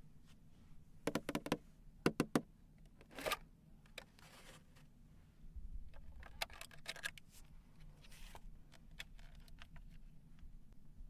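Plastic toys and packaging being handled: scattered light clicks and taps, with a couple of soft rustles, over a faint low hum.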